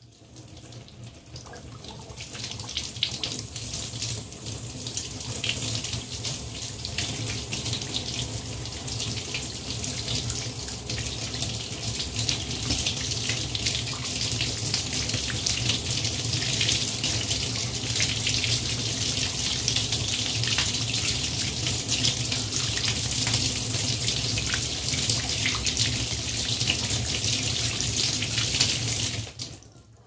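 Bathtub tap running, its stream splashing onto a small hand-held plate and into the tub. The sound builds over the first few seconds as the flow is opened up, runs steadily, and cuts off sharply just before the end as the tap is shut.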